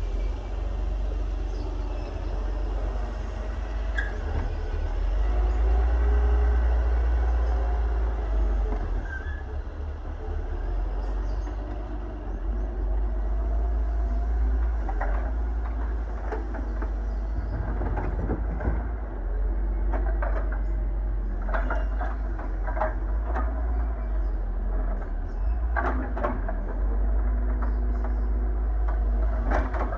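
Excavator's diesel engine running with a deep steady rumble, louder for a few seconds around six seconds in. From about fifteen seconds on come repeated sharp clanks and scrapes as the bucket tears up old asphalt.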